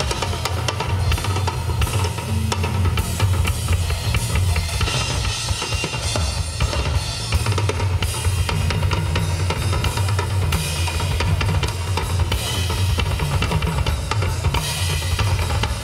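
Double-bass-drum rock kit played solo: dense, rapid strokes on toms and the two bass drums under a wash of cymbals.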